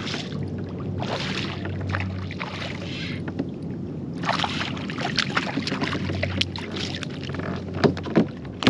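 Rustling, clicks and knocks of a just-caught fish being handled on a kayak, with short washes of noise and a few sharper knocks near the end.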